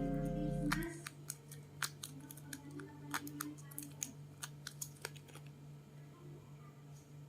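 Background music with a plucked guitar that stops about a second in, followed by a run of light, irregular clicks and taps of small objects being handled, which fade out a little after halfway.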